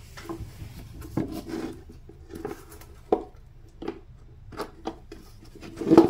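Hard plastic parts knocking and clicking together as a mass airflow sensor housing is handled and fitted onto a plastic air filter box lid: about eight short, irregular taps, the loudest near the end.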